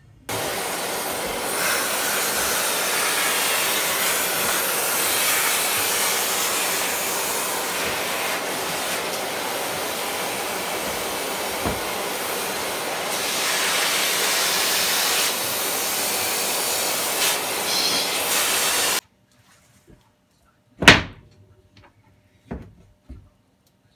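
A loud, steady rushing noise from a motor-driven tool runs and then cuts off abruptly. After it come one sharp click and a few light knocks.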